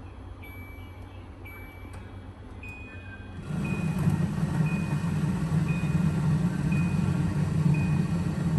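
Countertop water dispenser: a few touch-panel button beeps, then about three and a half seconds in its pump starts with a steady hum as warm water runs into a plastic bottle, while a short beep repeats about once a second during dispensing.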